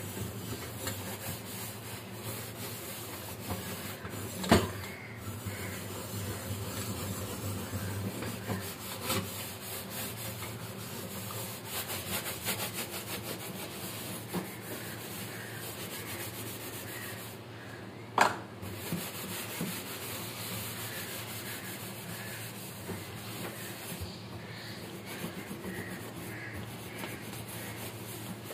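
Soapy steel wool scrubber rubbing back and forth over a glass-top gas stove, its burner cap and knobs: a steady, scratchy scrubbing. Two sharp knocks stand out, one about four seconds in and one a little past the middle.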